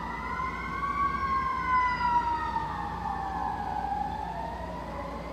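Emergency vehicle siren wailing as it drives past: a slow wail that rises over the first second, then falls away gradually.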